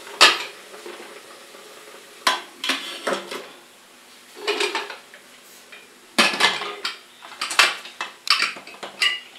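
Aluminium pressure cooker and its lid clanking as they are handled and the lid is fitted onto the cooker: a string of separate sharp metal clatters and knocks, the loudest just after the start and between about six and eight seconds in.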